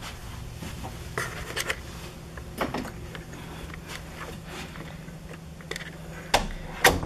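Soft rustling and scattered light knocks from close handling, over a steady low hum, with two louder knocks near the end.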